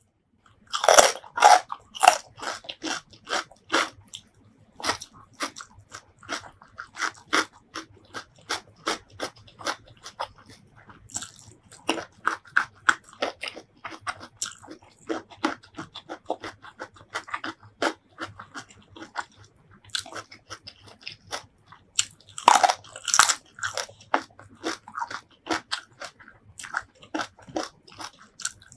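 Close-miked biting and chewing of crisp raw vegetables, cucumber and petai beans: loud crunching bites about a second in, then steady crunchy chewing at about two chews a second, with another run of loud bites about two-thirds of the way through.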